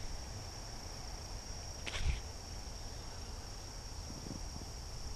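Steady, high-pitched drone of a chorus of insects, over a low rumble. A short click about two seconds in.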